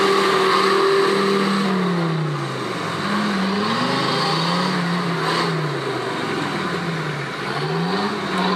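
Off-road 4x4's engine revving up and dropping back again and again as the throttle is worked, its pitch falling and rising several times. A short knock about five seconds in.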